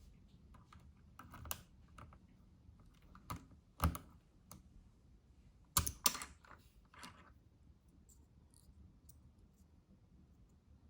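Plastic keycaps being worked off a Royal Kludge RK84 mechanical keyboard with a key puller: a handful of sharp clicks and clacks at irregular intervals, the loudest a little before the middle.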